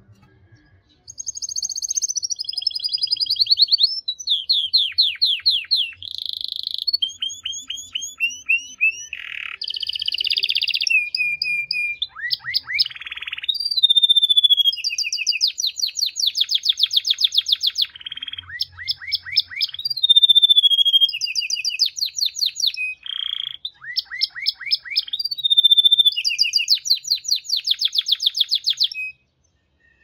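A male yellow domestic canary sings one long, unbroken song of fast trills, falling sweeps and held whistled notes, starting about a second in and stopping about a second before the end.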